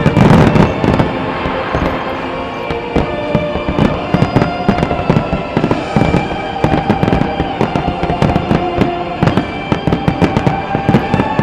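A rapid, continuous volley of fireworks: aerial shells bursting and crackling, with a heavy cluster of bangs in the first second. Music for the synchronised show plays with held tones under the explosions.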